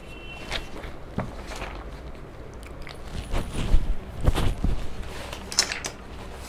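Footsteps on a hard floor with soft knocks and rustles as a person walks up, the loudest steps coming about three to five seconds in.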